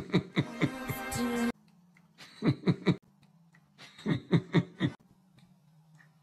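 Music: short groups of quick pulsing hits that come back every couple of seconds over a low steady hum.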